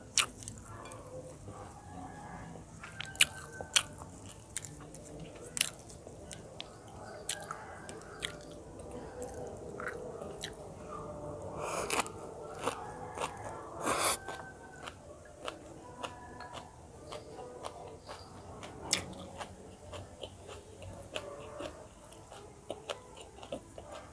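Close-up mouth sounds of a person eating rice, braised fish and raw herbs: chewing and biting, with scattered sharp clicks.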